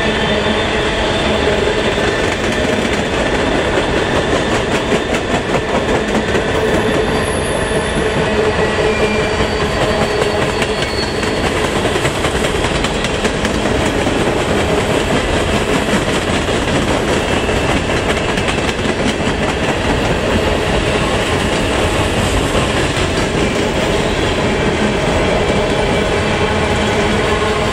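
A long train of steel coal hopper cars rolling past, the wheels clattering steadily over the rail joints, with faint wheel squeal now and then.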